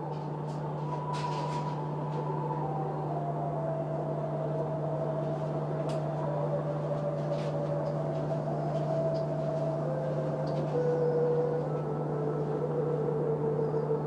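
A slow, mysterious melody of single long-held notes, stepping down and then climbing, with a wavering note near the end. It plays over a steady low hum and hiss.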